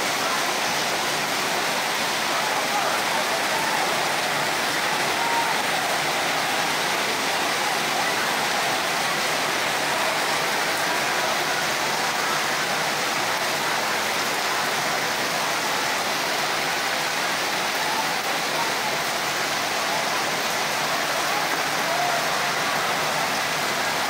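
Heavy rain pouring down in a steady, unbroken hiss.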